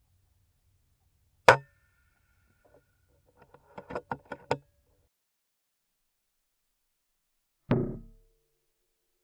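FX Impact M3 .22 PCP air rifle firing: one sharp shot about one and a half seconds in, a quick run of mechanical clicks from the side-lever being worked to chamber the next pellet, then a second shot with a short fading tail near the end.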